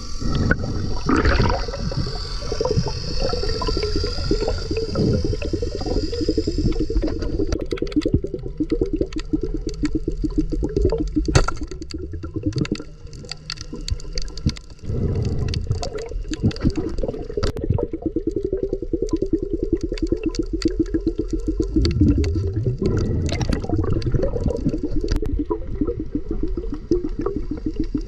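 Muffled water sloshing and gurgling, with scattered sharp clicks and knocks throughout.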